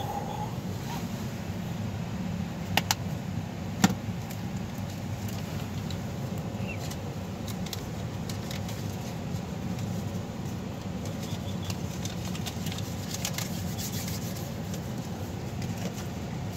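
Steady low hum of a car idling, heard inside the cabin. Two sharp clicks come about three and four seconds in, with lighter ticks and rubbing of handling noise later on.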